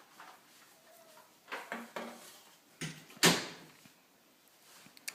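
A few light knocks, then two sharp thumps about three seconds in, the second one loud with a short ringing tail, like a door being shut.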